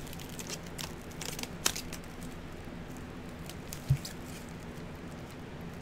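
Clear plastic stretch wrap crinkling and crackling as it is pulled off a hand roll and wound around a prop, busiest in the first two seconds, with a soft thump about four seconds in.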